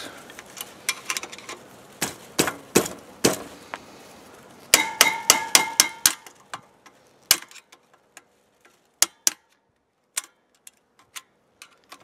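Screwdriver and pliers clicking and clinking against the metal parts of a water pump's pressure switch. About five seconds in there is a quick run of ringing metal clinks, then only scattered light clicks.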